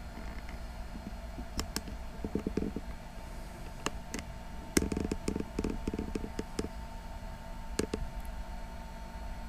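Laptop parts being handled during a teardown: scattered light clicks and several quick runs of soft knocks, over a steady low hum.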